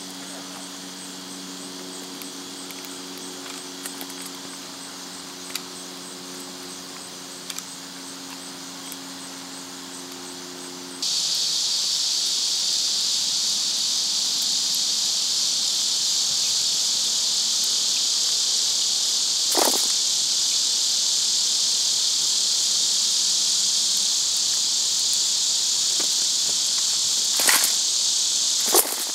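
Steady high-pitched buzzing chorus of insects, with a low steady hum underneath for the first third; about eleven seconds in the hum drops out and the insect buzzing becomes much louder. A few short clicks or taps come through, one about two-thirds in and two near the end.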